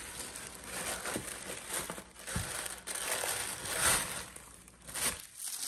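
Tissue paper rustling and crinkling as hands press a tissue-wrapped bundle down into a box lined with tissue paper, loudest about four seconds in, with a soft knock about two and a half seconds in.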